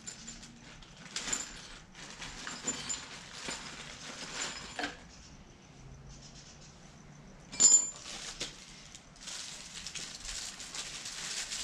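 Light clicks and knocks of parts and packaging being handled around a lawn mower, with one sharp click about two-thirds of the way in, then rustling near the end.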